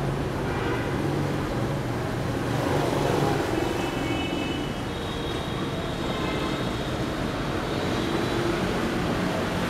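Street traffic on a wet road: motor vehicles passing, a steady hum and hiss that swells slightly about three seconds in.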